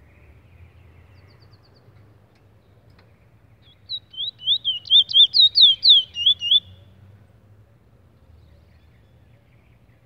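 A caged Trinidad bullfinch (chestnut-bellied seed finch) sings one quick phrase of about fifteen high whistled notes, each sweeping up and down, lasting a little under three seconds and starting about four seconds in.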